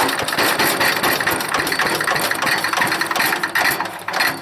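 Old small gasoline engine on a wood chipper being cranked over on a shot of starter fluid, turning steadily with rapid pulses and sputtering as it begins to fire; there is no gas in the tank yet.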